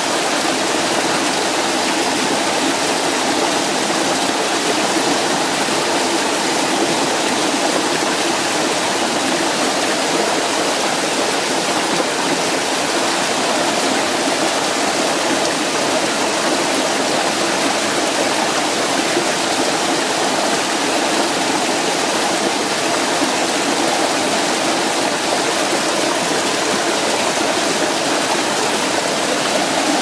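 Mountain stream pouring over a small rocky cascade between boulders, a steady, even rush of water.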